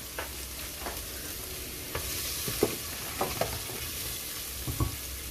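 Garlic frying in vegetable oil in a pan, a steady sizzle that grows louder about two seconds in, with a few knocks of a utensil stirring it against the pan. The garlic is being sautéed until golden brown.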